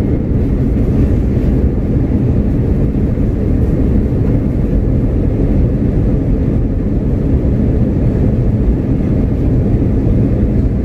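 Steady low drone of an airliner cabin, with no breaks or sudden sounds.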